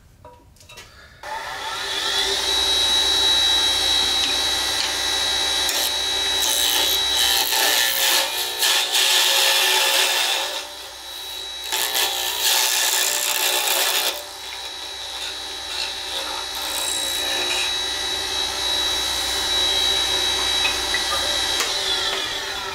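Wood lathe starting up about a second in and running with a steady high whine, while a spindle roughing gouge cuts a pen blank on the mandrel in loud scraping stretches. The lathe winds down near the end.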